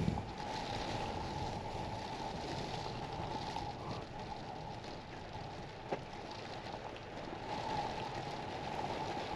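Storm wind and rain on a truck camper: a steady rushing noise as the wind rocks the camper. A thump comes at the start and a short knock about six seconds in.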